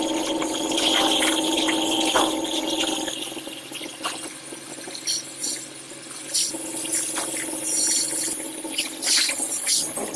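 Hot-dip galvanizing kettle with steel scaffolding standards in the molten zinc: a steady, water-like hiss and bubbling over a constant hum, with scattered metal knocks and clinks from the workers' rods and the rack.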